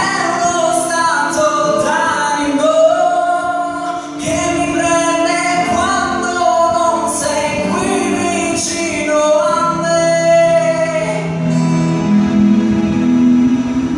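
A man singing an Italian pop ballad with instrumental accompaniment. The voice stops about eleven seconds in, leaving held accompaniment chords.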